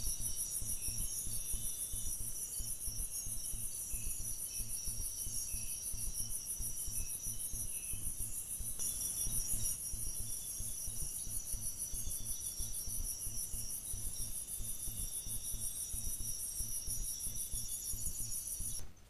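Night chorus of crickets and other insects: a continuous high-pitched pulsing trill, with fainter repeating trills a little lower and a low rumble underneath. It cuts off abruptly just before the end.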